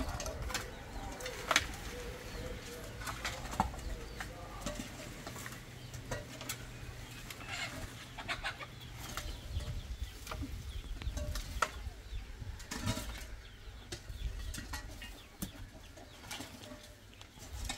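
Steel shovels scraping across hard dirt and tipping dry twigs and leaves into a metal wheelbarrow: a run of irregular scrapes, rustles and clatters.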